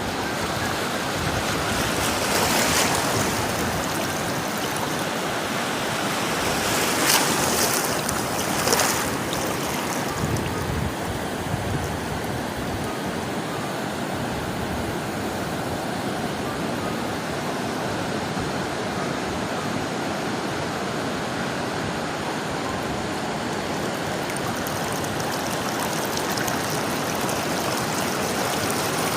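Sea waves washing continuously onto the shore as a steady rush, with a few louder surges of breaking water about two seconds in and again around seven to nine seconds.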